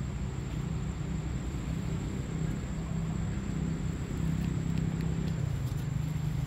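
A motor running with a steady low rumble.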